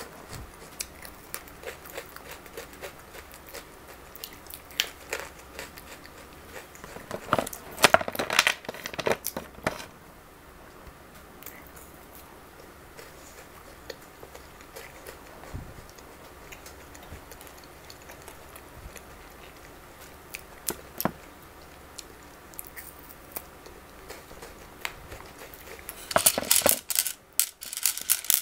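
Chocolate wrappers crinkling and tearing, in two dense bursts about seven seconds in and again near the end, with scattered small clicks in between.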